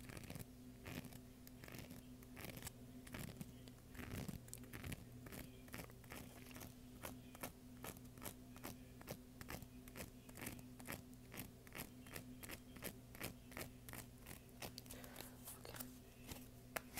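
A deck of playing cards handled close to a wired earphone microphone: a steady run of crisp card clicks, several a second.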